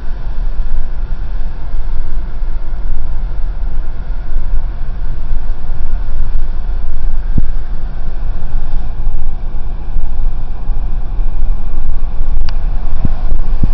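Steady road and wind noise inside a GMC Envoy SUV driving at highway speed, with a heavy low rumble.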